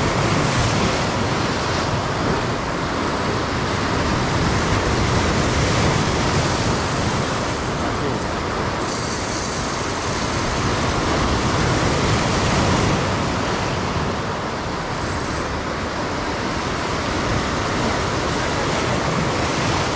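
Steady rushing noise of wind and sea waves, with no distinct events.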